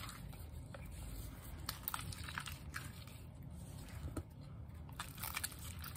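Purple slime squeezed and kneaded by hand: faint, squelchy squishing with small scattered wet clicks and pops.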